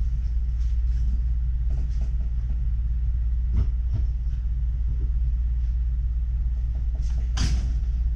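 Steady low mechanical rumble with a constant hum underneath, a few faint light clicks, and one sharper click near the end.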